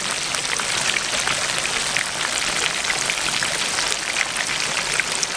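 Hot oil sizzling and crackling around a whole chicken deep-frying in a cast-iron skillet, a steady hiss full of small pops.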